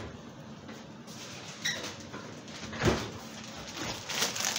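A few scattered knocks and bumps of things being handled in a kitchen: a light click, then a heavier thump about three seconds in, then a short cluster of knocks near the end.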